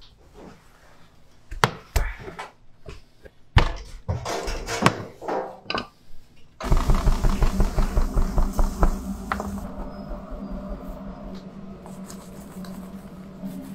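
Wooden rolling pin knocking and clattering on the table as flatbread dough is rolled out. About halfway through the sound changes suddenly to a steady hum with fast, repeated tapping that gradually thins out.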